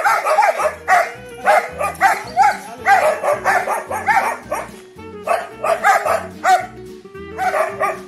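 Two dogs, a German Shepherd and a brown mixed-breed dog, barking hard at each other in quick runs of barks, with short pauses near the middle and near the end. Background music plays underneath.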